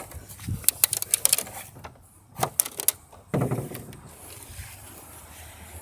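Quick sharp clicks and taps from handling a car hood, then a dull thud about three and a half seconds in.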